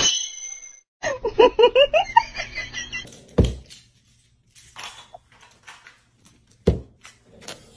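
A voice for about two seconds, then three dull, low thumps from a puppy pressing and pushing against a blown-up rubber balloon.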